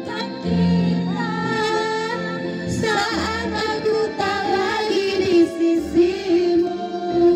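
A woman singing a pop song into a handheld microphone over a musical backing track, karaoke-style.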